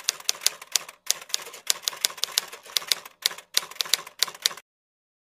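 Typewriter keys clacking in a quick run of about six strikes a second, with two brief pauses, used as the sound for text typing out on screen. It cuts off suddenly about four and a half seconds in.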